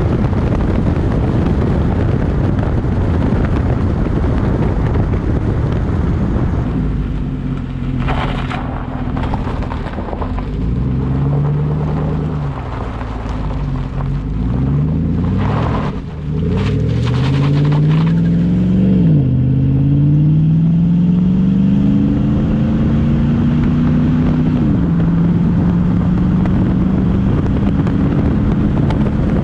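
Chevy Silverado 5.3 V8 with an MBRP cat-back exhaust accelerating through the gears, its note climbing and dropping back at each upshift, three times. A heavy rush of wind noise covers the first several seconds before the engine note comes through.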